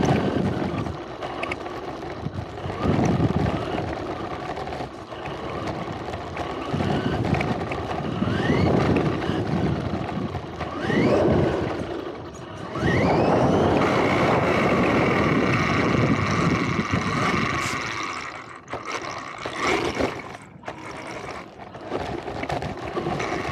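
RC car driving fast over pavement and dirt, heard from a camera riding on the car. The motor whine rises in pitch several times as it speeds up and holds steady for a few seconds past the middle, over a rough rumble of tyres on the ground.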